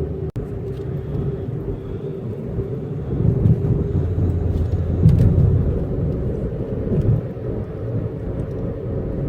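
Car driving along, heard from inside the cabin: a steady low road and engine rumble with a faint steady hum.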